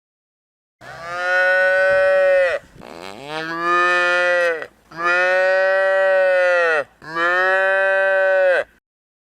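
Cow mooing: four long, loud calls in a row, each rising and falling in pitch.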